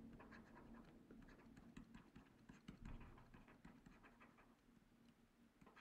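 Near silence, with faint ticks and scratches of a stylus writing by hand on a tablet screen.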